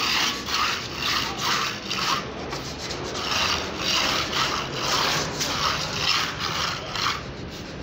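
Hand float rubbing over a wet textured wall coating in repeated up-and-down strokes, a scratchy scraping sound about twice a second with a short pause partway through.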